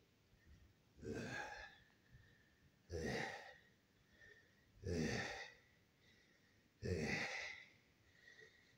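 A man's forceful, breathy exhalations, four in a row about two seconds apart, each a short rush of breath with some voice in it.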